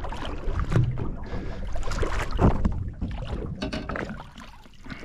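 Irregular knocks and clatter in a small boat as a little jewfish (mulloway) is landed, with a couple of heavier thumps about a second and two and a half seconds in.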